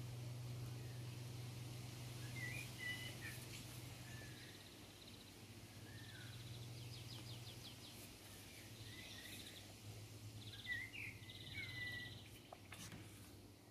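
Small birds chirping in short scattered calls, with a couple of quick trills, over a low steady hum; a couple of sharp clicks near the end.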